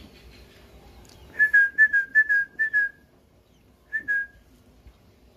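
Newly hatched quail chicks peeping: a quick run of about eight short, high, slightly falling peeps, then two more about a second later.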